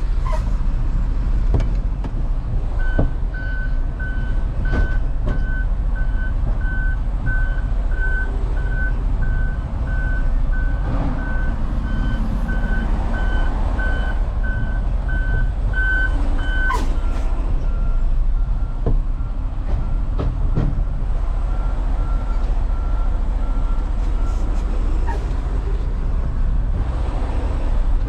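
Diesel truck engine running with a steady low rumble, while a reversing alarm beeps about twice a second for some fourteen seconds, then stops and a fainter, slightly lower reversing alarm beeps on for several seconds.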